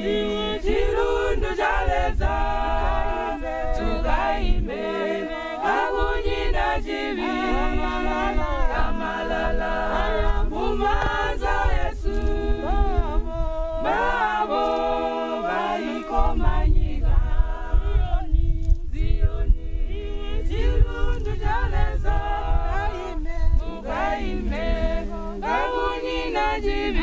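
A group of voices singing unaccompanied in harmony. About halfway through, a low rumble joins underneath the singing.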